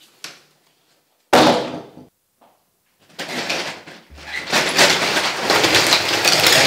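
A door slams shut about a second in. From about three seconds in comes a long stretch of dense rustling, clicking noise.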